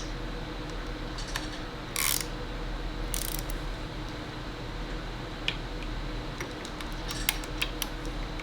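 Scattered light metallic clicks and short scrapes from hand tools being worked against the CNC router's gantry frame during adjustment, over a steady low hum.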